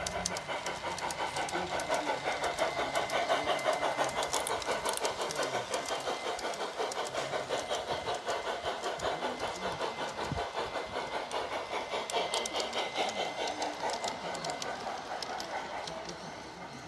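Large-scale garden-railway model train rolling past close by, its wheels clicking rapidly and evenly over the track joints. The sound swells a few seconds in and fades near the end.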